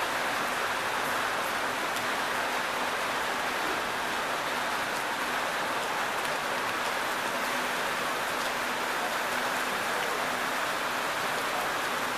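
Steady hiss of rain falling, with faint scattered drop ticks and no change in level.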